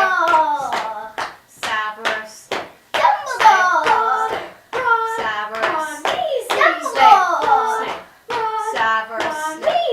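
Young voices chanting an a cappella song in short repeated phrases, with sharp hand claps and slaps marking the beat, in a small room.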